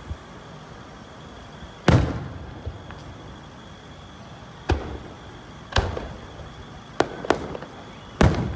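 Aerial firework shells bursting overhead: a series of sharp booms, each dying away in a long echo. The loudest comes about two seconds in, and they come closer together toward the end.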